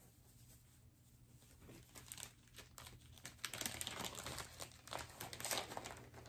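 Crinkling and rustling of a stiff white wrapping being handled and unfolded, in irregular bursts that start about two seconds in and grow louder toward the end.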